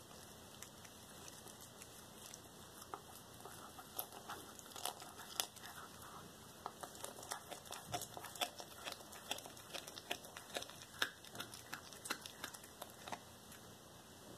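A domestic cat chewing and tearing into a whole raw rat, biting at its head: irregular crackling and crunching clicks, sparse at first and coming thick and fast from about four seconds in.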